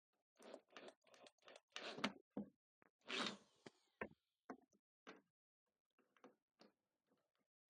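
Faint knocks and clatter of wooden strips being handled and set down on a workbench, with one louder, half-second rasping burst about three seconds in.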